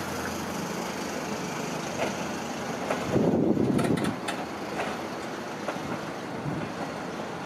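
Indian Pacific passenger carriages rolling slowly past, a steady rumble of steel wheels on the rails. About three seconds in it swells louder for roughly a second, with a few sharp clicks.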